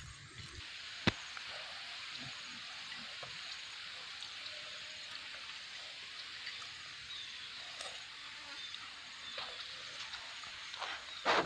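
Steady outdoor background hiss with a few faint ticks, a sharp click about a second in, and a brief louder noise near the end.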